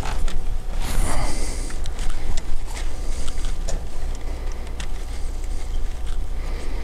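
Scattered small metallic clicks and taps as a magnet tool is worked into a diesel injection pump's governor housing, over a steady low hum.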